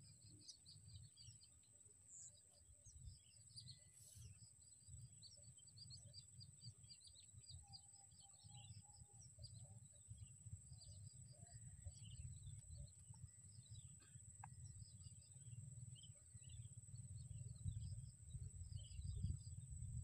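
Faint chattering of young plain prinias: many short high chirps in quick runs, over a low rumble and a thin steady high tone.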